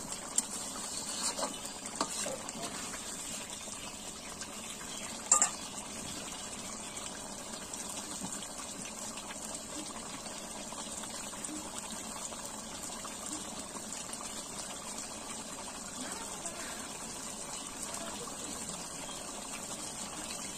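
Chicken curry simmering in an iron kadai over a wood fire, a steady bubbling hiss. There are a few faint clicks in the first two seconds and one sharp knock about five seconds in.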